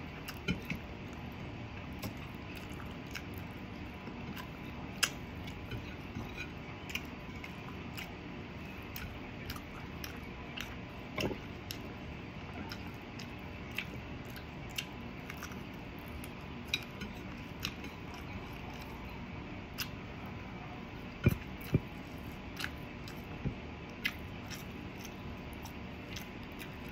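A person eating fried adobo: chewing with scattered sharp clicks and smacks. Two louder knocks come close together about three-quarters of the way through, all over a steady background hiss.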